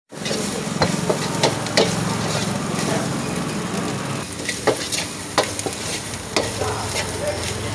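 Chicken noodles with shredded cabbage and vegetables sizzling as they are stir-fried in a wok over an open flame. The long-handled metal ladle clacks and scrapes against the wok in sharp strokes, irregularly, every second or so.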